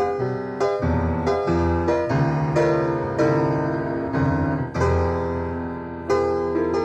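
Jazz piano played live from a cassette recording: a run of struck chords that ring and fade over sustained low bass notes.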